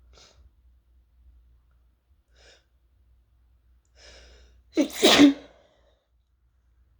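A person sneezing, set off by the fumes of toasting chili peppers: a few faint breaths, a breathy inhale about four seconds in, then one loud sneeze in two quick bursts.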